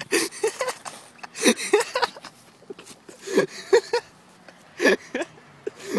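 A person laughing in short breathy bursts, a few every second and a half or so.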